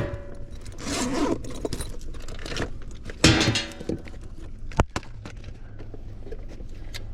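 Scraping and rustling handling noises, with one sharp click about five seconds in, over a faint low steady hum.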